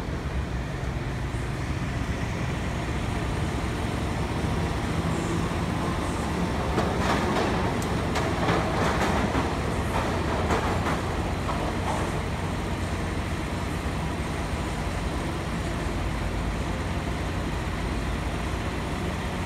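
TECO Line streetcar running along street track, its wheels clicking and rumbling loudest about halfway through as it passes, then fading as it moves off.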